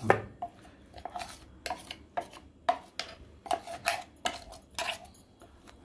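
A spoon scraping thick rice-and-coconut dosa batter out of a mixer-grinder jar into a bowl: a run of short, irregular scrapes and taps, about three a second, the first the loudest.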